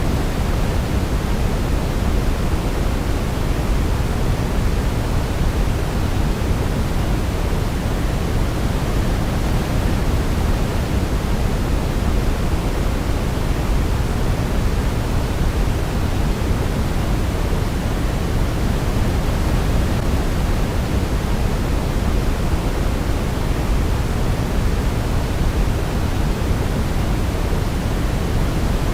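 Steady sleep-aid noise, a deep, even hiss weighted toward the low end, like pink noise, with no melody or change heard.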